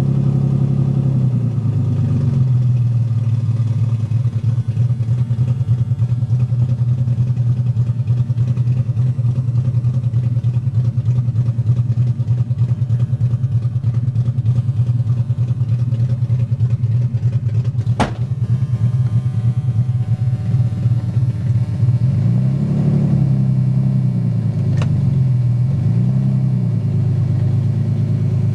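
BMW M50 non-VANOS straight-six, swapped into an E30 318i, idling roughly; its stored codes point to a bad crankshaft position sensor and a bad O2 sensor. A single sharp click comes about two-thirds of the way through, and near the end the revs rise and fall several times.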